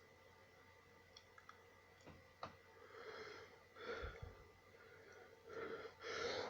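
Faint breaths and inhales from a person building up to a sneeze, coming closer together near the end. A light click a little over two seconds in.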